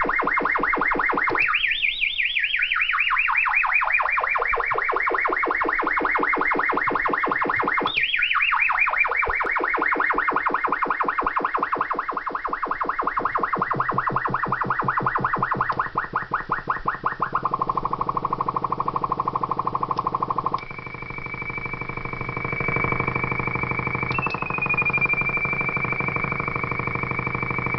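Electronic sound effects from a WP20 unit: a buzzy, rapidly pulsing synthesized tone that twice swoops down from high pitch and settles, then drops to a lower buzz. After that comes a thin, steady high tone that dips briefly once near the end.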